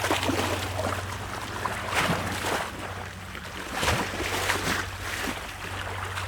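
Sea waves washing against rocks, with splashes surging up about two seconds in and again around four seconds.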